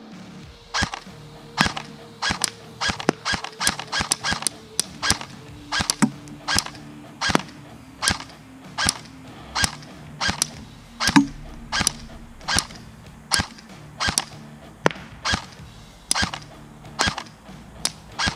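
LCT AK12 airsoft electric gun fired on semi-automatic: a long string of single shots, each a sharp crack, about two a second at an uneven pace.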